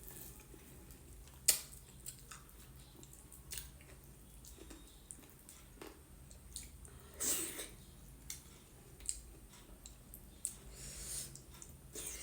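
Close-miked eating sounds: wet chewing, smacks and slurps of dhido (corn-flour porridge) with gundruk curry. A sharp click about a second and a half in is the loudest moment.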